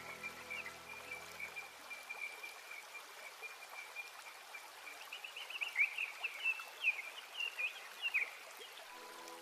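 Background music fading out in the first two seconds, leaving a rushing, stream-like water ambience with a steady high tone. A run of quick chirps comes in from about five to eight seconds, and the music's notes return near the end.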